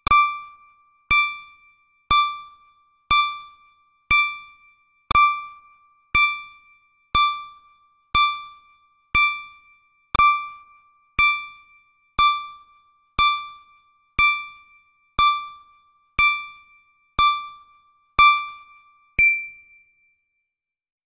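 Countdown timer's electronic ding, a short decaying bell-like tone struck once a second, about twenty times. The last ding, as the count reaches zero, has an added higher tone and rings longer.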